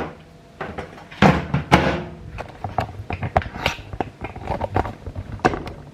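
Handling of takeaway food containers: short knocks and clicks as things are set down and opened, with two louder rustling bursts about a second in.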